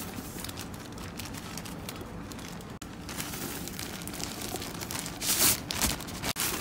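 Plastic bag of mini marshmallows crinkling as the marshmallows are poured out into a large aluminium pot, with a couple of louder rustles about five and a half seconds in.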